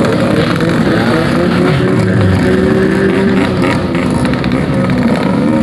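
Several two-stroke motorcycle engines running and revving together, their pitches overlapping and rising and falling.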